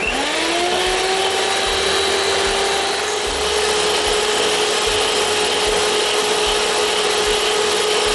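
Electric hand mixer switched on, its motor whine gliding up in pitch for about half a second and then running at a steady pitch as the twin beaters whip cream in a steel bowl.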